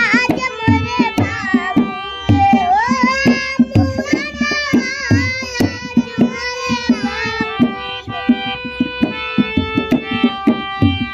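A young girl singing a devotional-style Indian song to her own hand harmonium, its held reedy chords running under her voice, with a steady drum beat like a tabla or dholak. Her voice stops about two-thirds of the way through, leaving the harmonium and drum.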